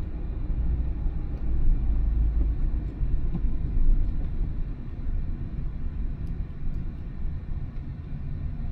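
Car driving: a steady low rumble of engine and road noise, easing off a little in the last few seconds.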